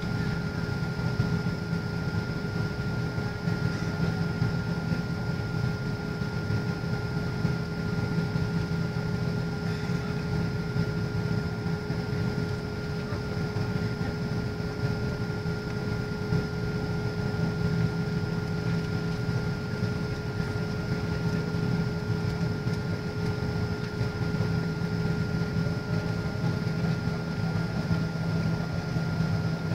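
Jet airliner cabin noise in flight after takeoff: a steady low engine and airflow rumble with two steady whining tones running through it, heard from inside the cabin.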